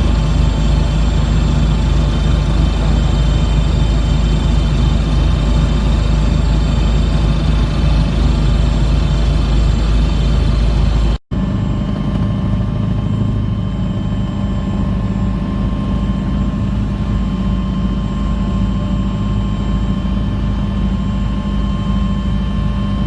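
Helicopter engine and rotor noise, loud and steady, with a few steady tones running through it. It cuts out for an instant about halfway through and picks up again slightly quieter.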